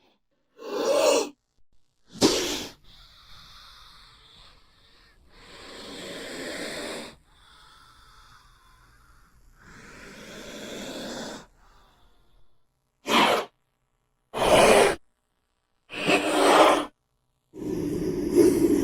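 King cobra hissing in a series of breathy hisses separated by silences: short sharp ones, two longer and softer ones midway, and a louder, longer hiss starting near the end.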